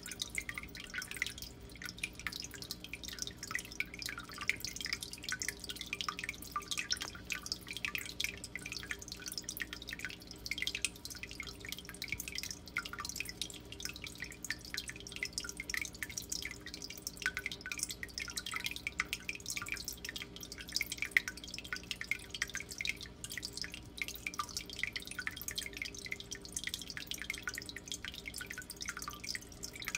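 Water in a turtle tank trickling and dripping continuously, a dense patter of small quick drops, over a steady low hum.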